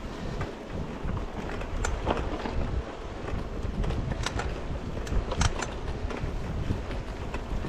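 Mountain bike riding over a rough, rutted grass trail, heard from a handlebar-mounted camera: a steady rumble of tyres and wind on the microphone, with a few sharp rattles and knocks as the bike jolts over bumps, about two seconds in and twice more later on.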